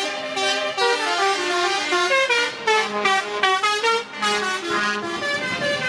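A truck's musical air horn playing a tune of quick, changing notes, with a lower steady horn tone held on and off around the middle.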